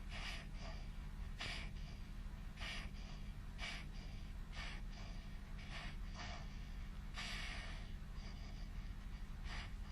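A 7-month-old infant's fast, noisy breathing, a short rush of air about once a second, over a steady low hum. The rate is fast breathing for his age.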